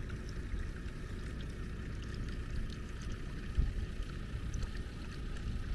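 Spring water pouring in a thin steady stream from a hose into a concrete trough, under a low steady rumble.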